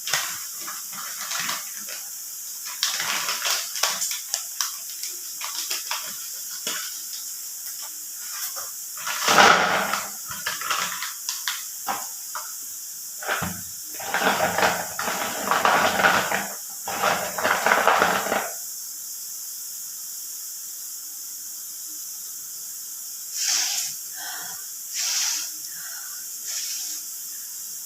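Irregular bursts of rustling and crinkling, with many small clicks, as the packaging of new naphthalene balls is handled and opened.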